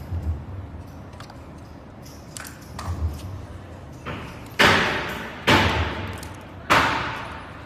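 A series of sharp knocks on something hard, each ringing out for about a second: a few soft ones, then three loud ones about a second apart in the second half.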